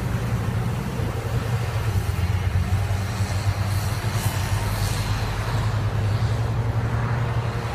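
Tractor engine running steadily under load while towing a Major slurry tanker that is spraying slurry across the field from its rear splash plate.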